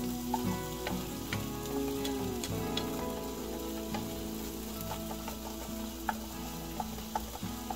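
Food sizzling in a nonstick frying pan on an electric stove while a wooden spatula stirs and scrapes through it, with scattered light taps of the spatula against the pan.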